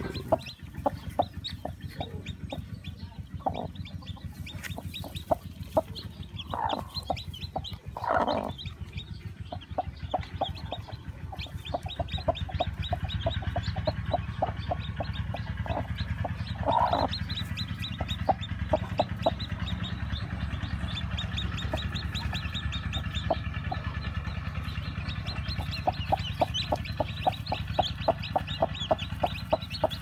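Newly hatched chicks peeping continuously in the nest, with a broody hen clucking over them. A few longer, louder calls stand out in the first half.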